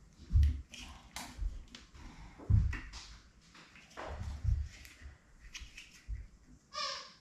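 Handling noise from a Texas Power Paddle Remora's plastic handheld remote being fitted into its mounting clip: irregular knocks and small clicks, with a brief squeak near the end.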